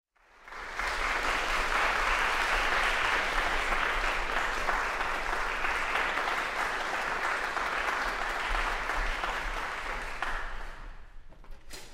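Audience applauding, starting just under a second in and fading away near the end.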